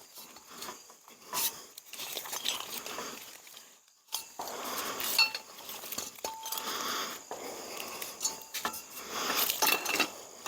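Metal tree-stand gear clinking and rattling as it is handled, with short ringing metal knocks and rustling in between.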